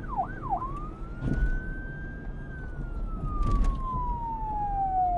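Police siren switching from a fast yelp to a slow wail about half a second in: the tone climbs for a couple of seconds, then slides slowly down, over a low rumble.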